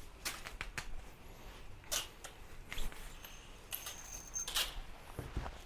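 Faint scattered clicks and short scrapes of a brass tenor horn mouthpiece and tool being handled and worked on, with a brief thin squeak near the middle.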